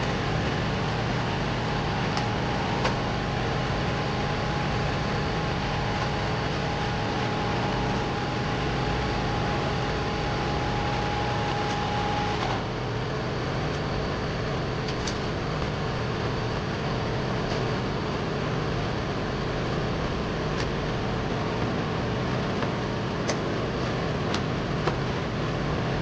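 Steady running noise of a computer-room air-conditioning unit's fans, with a steady tone that cuts off suddenly about halfway through. A few short sharp clicks sound over it.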